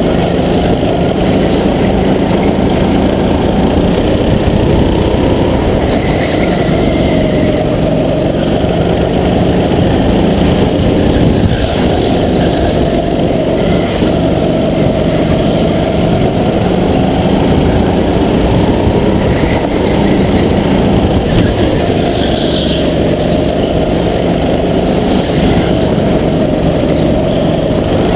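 Racing go-kart's small engine running hard at full throttle, its pitch falling and rising again and again through about one lap of corners, heard close from the driver's helmet camera.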